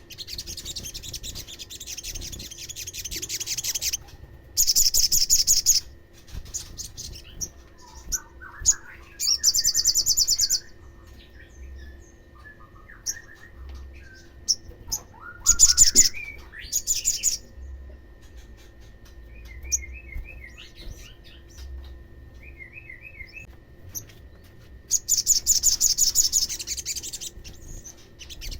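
Olive-backed sunbird song: a high, rapid trill lasting a second or two, repeated about five times, with softer twittering chirps in between.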